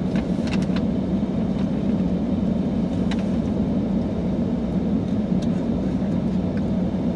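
Steady road and engine noise inside a moving car's cabin, with a few faint clicks scattered through it.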